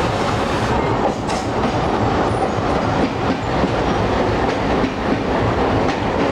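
Passenger coaches of an express train rolling past, wheels clacking over the rail joints as the train comes into the station.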